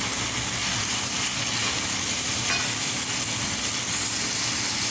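Food frying in a pan: a steady sizzling hiss.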